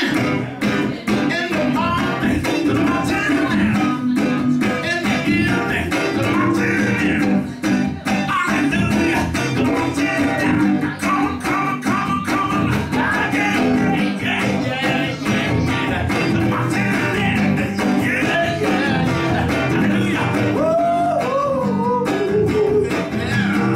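Les Paul-style electric guitar played live, with a man singing over it.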